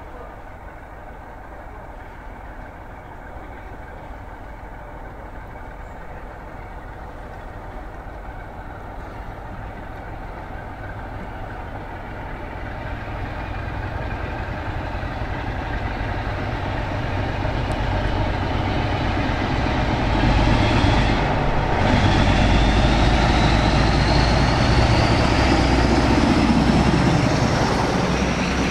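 BR Class 47 diesel locomotive with its Sulzer twin-bank twelve-cylinder engine, approaching under power and growing steadily louder. It passes close by with a high whine rising in pitch and the engine note dropping as it goes past.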